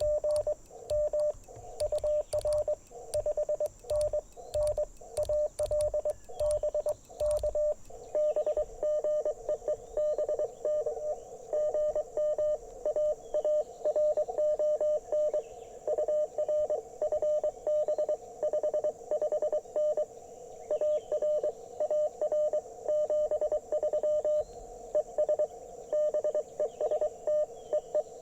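Morse code (CW) beeps from an Icom IC-705 transceiver, a single-pitched tone keyed rapidly on and off during a quick run of contacts. Clicks and thumps go along with the keying for the first eight seconds, and a second, slightly lower-pitched signal joins about eight seconds in.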